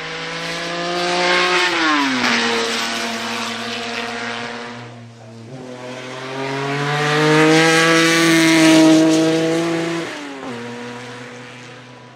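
BMW 3.0 CSL Group 2 race car's 3.2-litre straight-six accelerating hard, its note climbing and then falling sharply at a gear change about two seconds in. The engine climbs again, loudest around eight to nine seconds as the car goes by, and the note drops sharply once more near the end.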